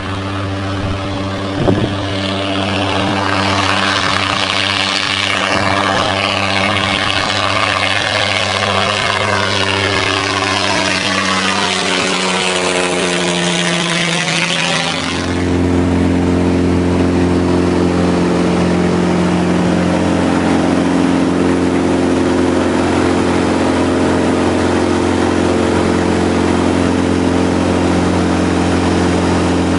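Single-engine propeller plane's piston engine running steadily at low power, heard from the cockpit of an RV-6 homebuilt. Over the first half a rushing hiss sweeps up and down in pitch, then stops abruptly about halfway, and the engine note becomes a little louder and steadier.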